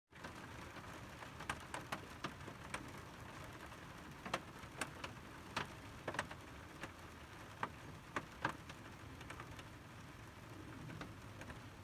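Steady rain hiss with irregular sharp taps of individual raindrops hitting a hard surface, a couple of dozen over the stretch.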